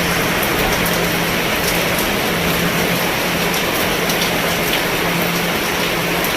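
Steady rain falling on a roof: an even hiss with scattered drop ticks.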